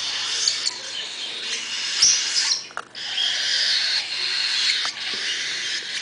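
Baby cockatiel chicks giving high, raspy, continuous begging calls. There is a sharp knock about two seconds in, followed by a brief lull before the calling resumes.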